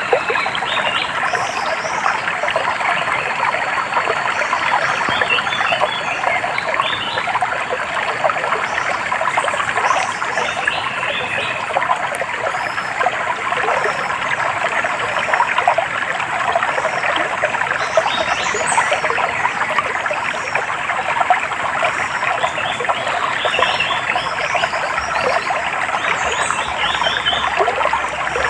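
A small stream trickling and babbling steadily over stones, with short high bird chirps now and then.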